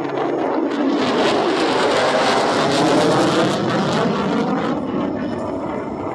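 Jet roar of an F-35A Lightning II's single afterburning Pratt & Whitney F135 turbofan as the fighter flies past. The noise swells to a peak about halfway through, then eases off.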